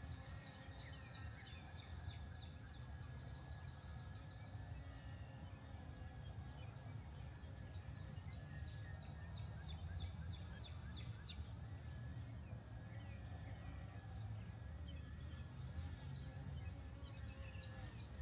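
Wild birds calling: series of short, high chirps, with two fast trills about three seconds in and near the end, over a steady low rumble of outdoor background noise.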